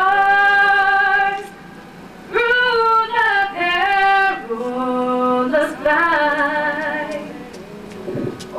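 Solo female voice singing unaccompanied into a handheld microphone, in long held notes, with two short pauses, about a second and a half in and near the end.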